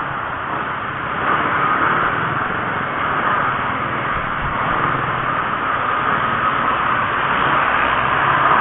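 Steady road and wind rush with a low engine hum from a vehicle travelling along a highway.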